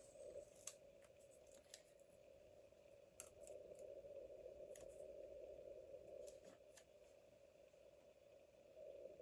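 Faint snips of scissors cutting paper: a handful of short, separate clicks spread over several seconds, over a steady low hum.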